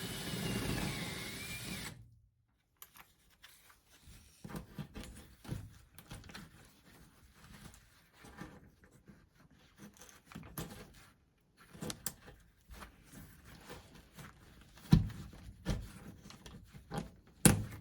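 A power drill runs for about two seconds, its whine dipping and coming back up as it bores a pilot hole out wider for a toggle bolt. Then come scattered light clicks and handling knocks, with two sharper knocks near the end.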